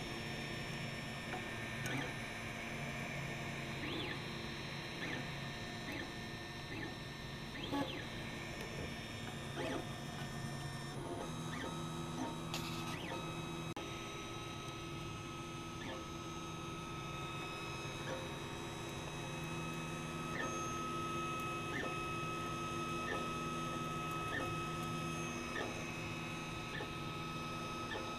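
Monoprice Select Mini 3D printer running a print: its stepper motors whine in steady tones that change pitch every few seconds as the print head moves back and forth laying down the first layer, with faint ticks now and then.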